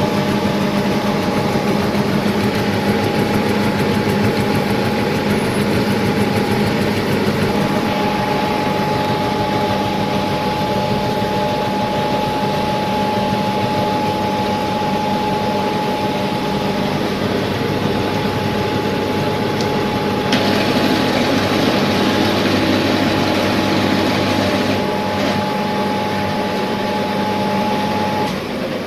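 Milling machine running steadily with a constant whine and a low hum while it cuts the metal part. A brighter, hissier cutting noise joins about two-thirds of the way through, and the whine stops just before the end.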